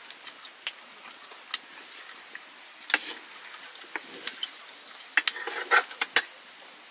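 Metal spatula scraping and clinking in a metal wok of frying meat, with a few sharp scrapes about three seconds in and a quick run of them near the end, over a faint sizzle.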